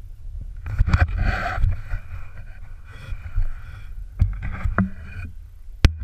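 Skis running through deep powder, with a steady low wind rumble on an action camera's microphone and bursts of snow hiss during turns. Two sharp knocks, about four seconds in and again just before the end.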